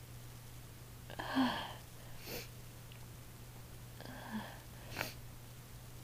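A woman's soft, breathy voiced exhales between sneezes, while she is sniffing chhinkni snuff to bring on sneezing. The first comes about a second in and the second about four seconds in, each with a slightly falling pitch. Between them are two brief sharp noises, near two and near five seconds.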